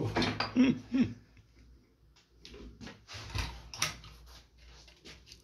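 Scattered short clicks and knocks of hand work on a Volkswagen Beetle's window rubber and trim, the loudest about three and a half to four seconds in.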